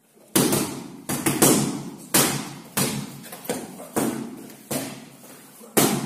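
Boxing gloves striking focus mitts in padwork, about ten sharp smacks at a steady pace of roughly one every two-thirds of a second, each echoing in a large hall.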